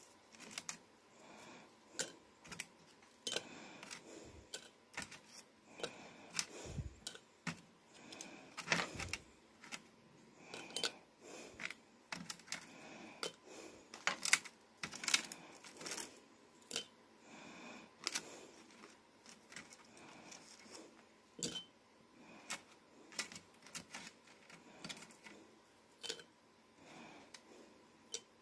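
Crisp dried apple slices dropped one by one into a glass Mason jar: irregular light clicks and taps, one to a few a second, as the slices hit the glass and each other.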